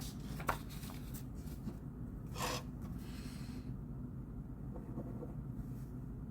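Pen writing on paper: a run of short scratchy strokes and light taps, with a longer stroke about two and a half seconds in, over a steady low hum of room noise.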